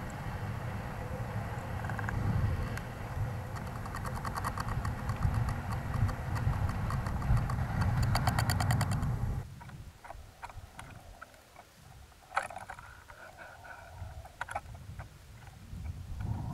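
Wind buffeting the onboard camera of a high-altitude weather-balloon payload: a heavy low rumble with a fast, regular flutter from a small cloth flag flapping in the airstream. About nine and a half seconds in it cuts off suddenly to a much quieter background with scattered light clicks and taps.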